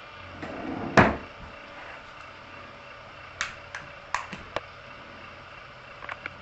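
Sharp clicks and knocks of a small knife working in a carved pumpkin's shell: one loud knock about a second in, then a quick run of smaller clicks, and two more near the end.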